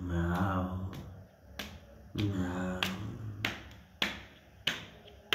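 Two low, drawn-out voice-like calls, each under a second, then three sharp clicks about two-thirds of a second apart as a hard plastic toy animal figure is knocked against the floor.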